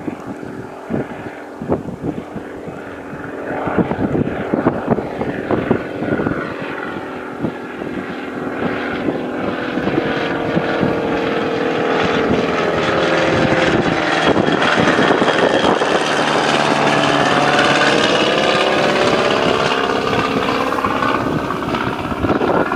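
Propeller aircraft engine growing louder as it approaches, then passing by with its pitch sliding down, with wind buffeting the microphone in the first few seconds.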